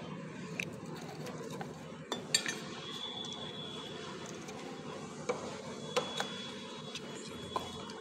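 Metal hand tool clinking against the clutch assembly of a motorcycle engine as its 8 mm bolts are undone: a handful of scattered sharp clinks, the loudest about two and a half seconds in.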